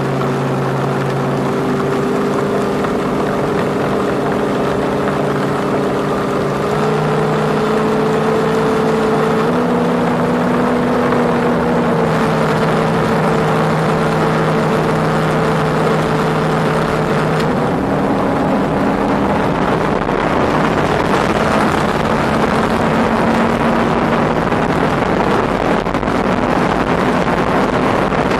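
Mercury 300R outboard at full throttle, driving a tunnel-hull race boat as it accelerates from about 40 to 100 mph. The engine note climbs in steps, and wind rushing over the microphone grows louder as the speed builds.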